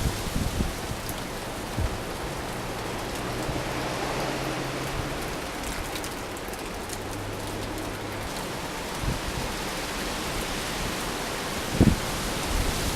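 Steady rain falling in a windy winter storm, a continuous hiss. A couple of low gusts buffet the microphone just after the start and again near the end.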